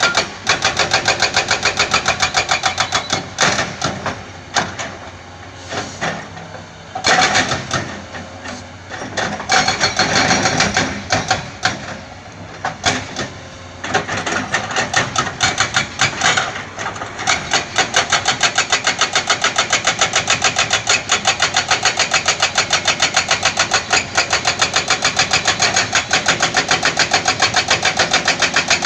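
Diesel engine of heavy earthmoving equipment running, with a fast, even pulsing. About three seconds in the sound turns rough and uneven, as if the machine is working under load, then settles back into the steady pulsing for the second half.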